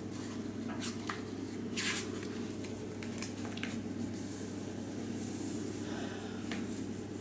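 Pages of a paperback book being handled and turned, a few short papery rustles over a steady low room hum.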